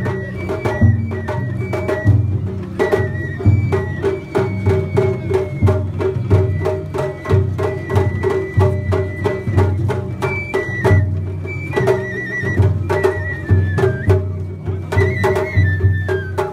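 Japanese festival hayashi from a float being pulled along the street: taiko drums beating a quick, steady rhythm, with a high bamboo flute carrying the melody over them.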